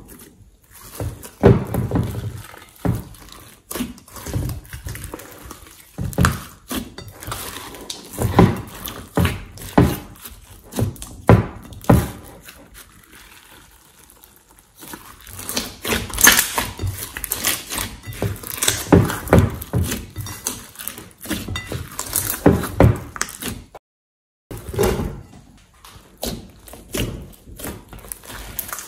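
Thick, glossy slime being kneaded, squeezed, stretched and poked by hand, giving irregular wet squishes and sharp sticky pops and clicks in quick clusters.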